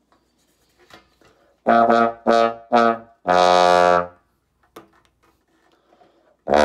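Bass trombone played through a straight mute: three short notes, then a longer held note, and another note starting near the end.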